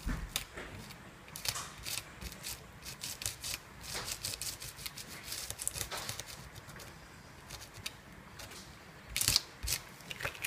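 Paint being dabbed through a flexible plastic stencil onto a paper tag: irregular soft taps with crinkling and crackling of the stencil sheet, and a louder cluster of crackles near the end.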